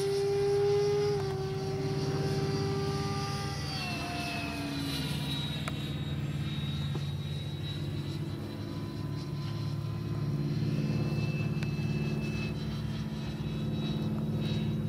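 Stumax 110 mm electric ducted fan of an RC jet in flight, a steady whine. Its pitch dips slightly about a second in and drops further around four seconds in, then holds lower.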